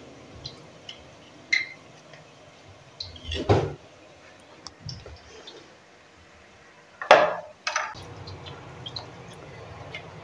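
A perforated spoon knocking against a metal frying pot: one knock about three and a half seconds in and two more close together about seven seconds in, with small clicks between them. Batter frying faintly in hot oil underneath.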